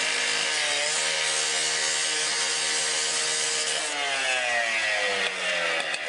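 Firefighters' portable power cutting tool running steadily as it cuts into a plastic pipe, with a dense hiss over the motor note. About four seconds in, the motor's pitch glides downward as it slows.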